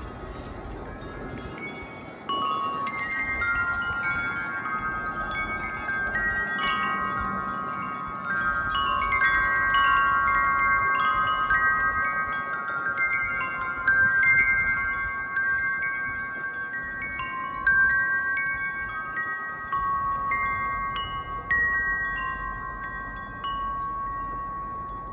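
A wind chime rings in the wind. Its tuned tubes are struck at irregular times, and several overlapping notes ring on long after each strike. The strikes get louder and busier about two seconds in.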